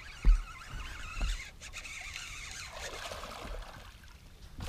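A hooked largemouth bass thrashing and splashing at the water's surface beside a bass boat as it is played in on the line, with a couple of low thumps early on.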